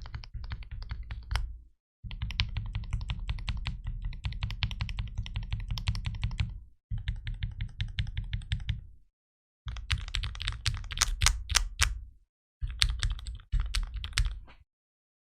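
Typing on a plateless, tape-modded Daisy 40 custom keyboard with Cherry MX Hyperglide linear switches: fast runs of keystrokes with a deep low end, broken by five short pauses. A few strokes near the middle are louder.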